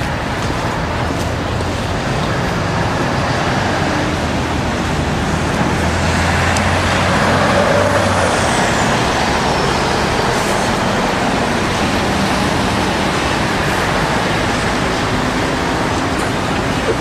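Steady city street traffic noise, with a city bus's engine hum growing louder as it passes about halfway through. A faint high tone glides downward in pitch just after.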